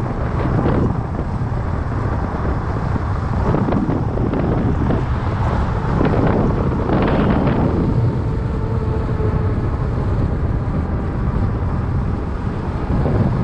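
Steady wind noise buffeting the microphone of a camera on a moving fat bike, a dense low rumble with no let-up.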